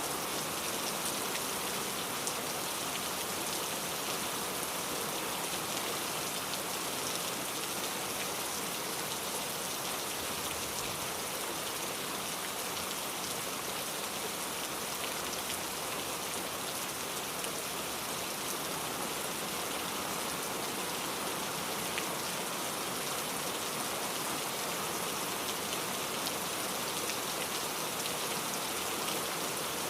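Steady rain falling, a dense even hiss of many small drops hitting a surface.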